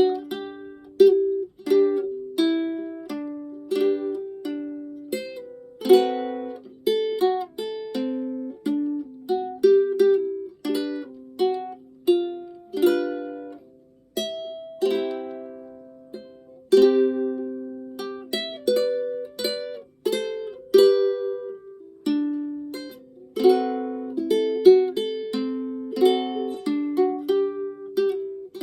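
Solo ukulele playing a Hawaiian melody: a steady run of plucked single notes and chords, each ringing briefly and fading.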